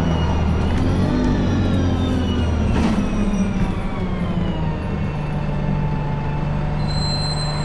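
Bus engine and drivetrain running, with a whine that rises and falls during the first few seconds and then settles into a steady low hum about five seconds in.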